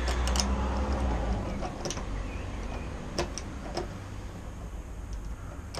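Scattered light clicks and taps as the small supplied bolt is worked against the mounting hole of an FMF quiet insert in the exhaust, the holes not lining up. Under them a low steady hum fades after about a second and a half.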